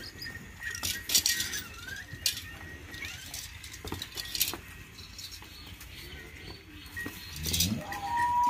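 Farmyard animal sounds around a cow and her calf: scattered knocks, shuffles and rustles. Near the end comes a long animal call, held on one pitch and then falling away.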